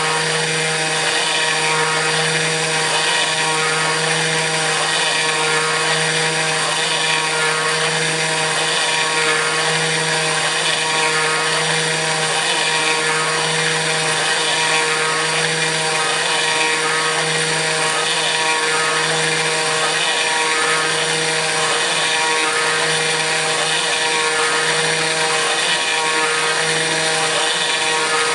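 Kress FME-1050 router spindle running steadily on a CNC machine while milling aluminium, a dense whine with a low hum that swells and fades about every second and a half.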